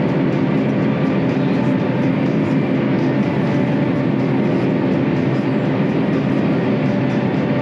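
John Deere self-propelled forage harvester running, heard from inside its cab: a steady mechanical drone with several steady tones held throughout.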